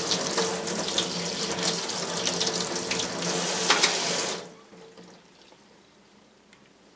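Kitchen tap spray running onto a stainless steel knife blade and into a stainless steel sink, with a steady low hum under the water. The water cuts off about four and a half seconds in.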